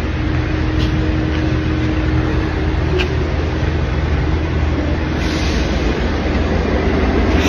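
Steady low rumble and hiss of background noise, with a faint steady hum for the first three seconds and a few brief short sounds.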